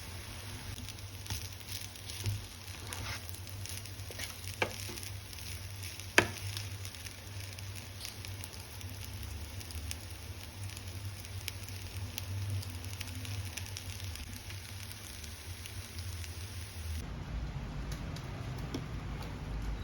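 Food sizzling as it fries in a hot pan, with a few sharp clicks, the loudest about six seconds in. The sound changes abruptly near the end.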